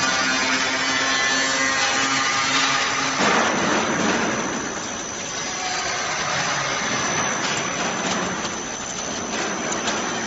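Vegetable processing line machinery running, with its stainless mesh-belt conveyor carrying cauliflower florets: a steady mechanical hum that gives way about three seconds in to a broader rushing noise, with a few light clicks near the end.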